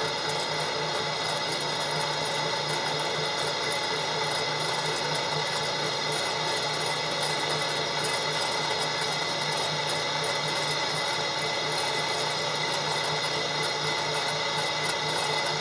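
Large drill press running steadily, its motor and belt drive giving a constant multi-toned whine, while a twist bit bores through a wooden disc.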